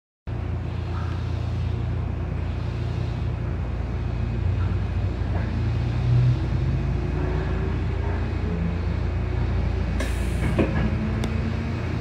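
Sanyo Electric Railway train running, heard from the front of the cab: a steady low rumble of wheels on rail with a faint motor whine rising slowly in pitch as it pulls away from the station. About ten seconds in, a short hiss and then a sharp click.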